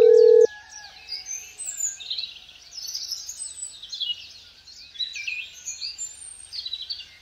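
A steady electronic tone cuts off abruptly about half a second in. Birds then chirp and twitter, many short quick calls.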